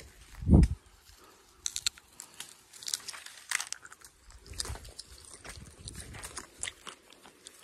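Footsteps crunching over dry leaves and twigs, with irregular crackles and snaps from brushing through dry stalks and weeds. A single low thump about half a second in is the loudest sound.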